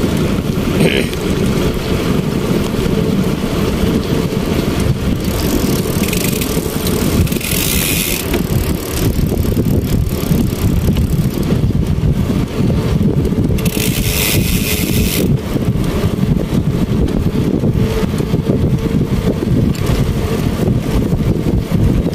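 Motorcycle engine running steadily under a ride, with wind buffeting the microphone. The rumble holds throughout, and there are two stretches of high hiss, about six seconds in and again about fourteen seconds in.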